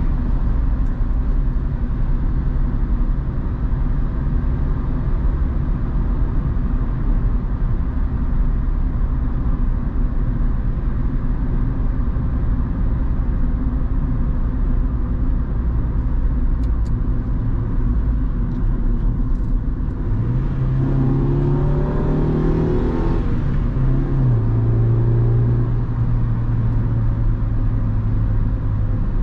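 1997 Honda Civic 1.4i's four-cylinder petrol engine heard from inside the cabin, droning at a steady cruise with road and tyre noise. About two-thirds of the way in the engine note rises as the car accelerates, then steps down at an upshift and settles into a steady, lower drone.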